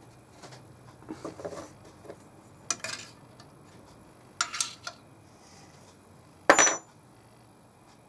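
Metal hand-tool work at a steel plate: a hand reamer is turned in a hand chuck through a dowel hole, with light scraping and several sharp metallic clinks. The loudest clink comes about six and a half seconds in and rings briefly.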